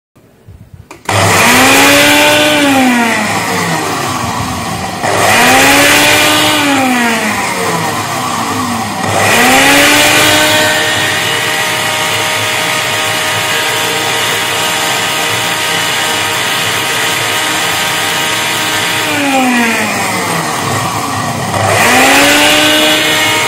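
Ninja blender motor, just repaired, running an automatic preset program with an empty jar: it spins up with a rising whine, slows and spins up again in pulses, holds a steady run for about ten seconds, then slows and starts again near the end. The motor spinning on every pulse shows the 'not spinning' fault is fixed.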